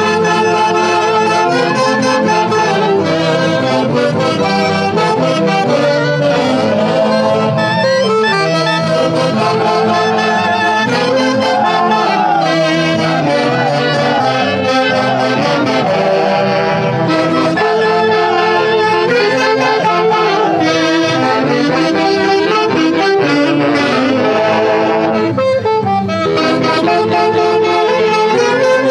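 A Peruvian festival orchestra led by saxophones and brass plays a lively folk dance tune.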